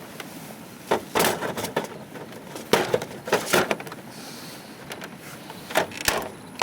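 Knocks and clatter of an HP copier's plastic lid and trays being lifted and moved, in three short bunches about a second, three seconds and six seconds in.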